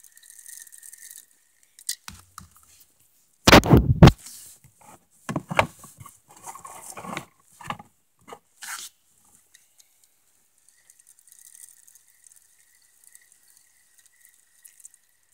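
Close handling noise from gear in a canoe: a loud clatter of knocks and rubbing about three and a half seconds in, followed by scattered lighter clicks and taps over the next few seconds.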